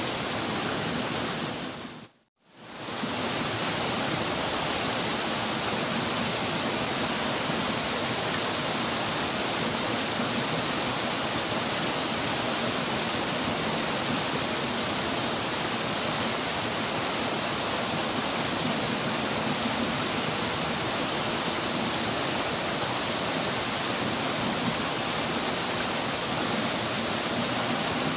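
Steady loud rushing of river rapids by a waterfall. The sound cuts out for a moment about two seconds in, then carries on unchanged.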